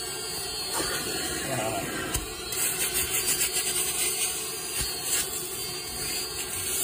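Upholstery extraction machine running steadily: its vacuum motor hums and hisses while cleaning solution is sprayed onto a fabric car seat and sucked back out, with a few light knocks of the tool against the seat.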